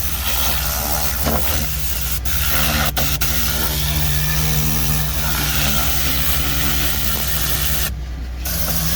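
Vortex compressed-air cleaning gun blasting air, a loud steady hiss that stops briefly near the end, over a steady low hum.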